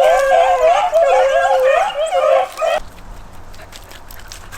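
Rabbit hounds baying and yelping in a wavering, overlapping chorus as they run a rabbit's fresh trail. The cries stop abruptly a little under three seconds in.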